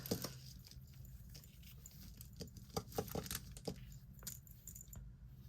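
Costume jewelry being handled, heavy plastic beads and small pieces clicking and clinking against each other in light, irregular taps.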